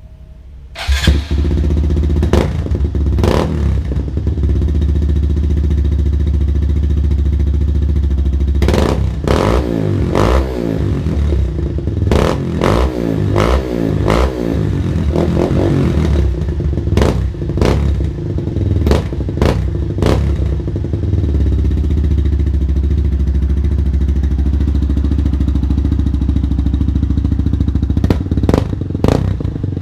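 Honda MSX125 (Grom) single-cylinder 125 cc four-stroke engine running through an aftermarket exhaust. The engine sound begins suddenly about a second in and then idles steadily. It is revved with a series of quick throttle blips through the middle, settles back to idle, and is blipped a few more times near the end.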